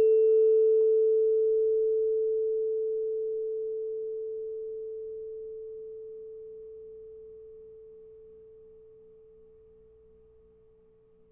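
A440 tuning fork on a wooden resonator box, just struck, ringing one pure steady tone that slowly fades away over about eleven seconds. Faint higher overtones die out within the first couple of seconds. It sounds the A reference pitch for tuning a fiddle.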